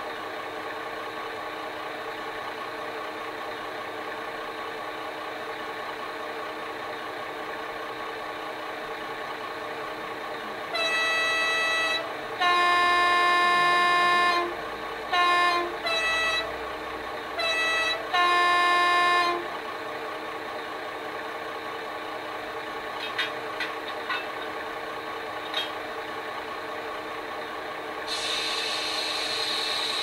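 Digital sound file of a British Rail Class 21 diesel locomotive idling steadily, played through a model locomotive's decoder speaker. The two-tone horn is sounded six times, mixing a high and a low note: long high, long low, then shorter low, high, high and a long low. A few clicks follow, and near the end a hiss of air starts, the brake release.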